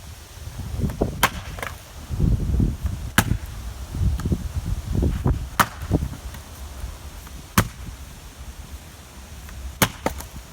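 Fiskars 36-inch splitting axe striking wood: five sharp cracks about two seconds apart, the last a quick double hit, with low rumbling noise between the blows.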